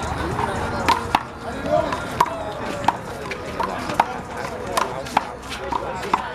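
Handball rally: a big blue rubber handball slapped by hand and smacking off the wall and the pavement, an irregular series of about a dozen sharp smacks.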